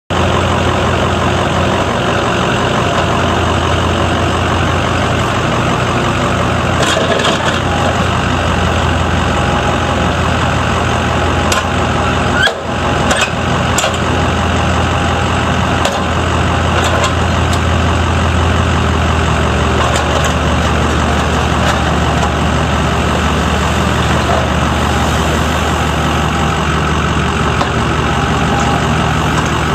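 IHI 35N-3 mini excavator's 26.7 hp Yanmar diesel running steadily while the boom, arm and bucket are worked and the machine slews. A few sharp knocks break in, the loudest about twelve and a half seconds in.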